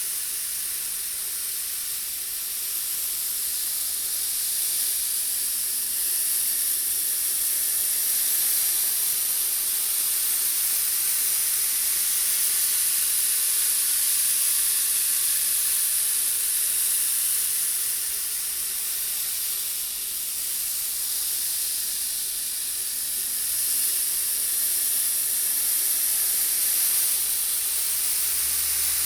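Many small steel balls rolling continuously round a brass bowl kept tilted by a motor, making a steady, bright, rain-like hiss that swells and eases gently every few seconds.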